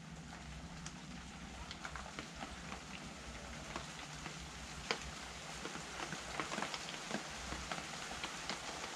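Rain falling: a steady hiss with many scattered sharp drop hits, a few louder ones through the middle and later part.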